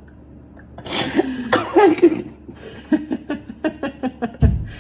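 A man and a woman laughing hard, in bursts with coughing, starting about a second in. A dull low thump near the end.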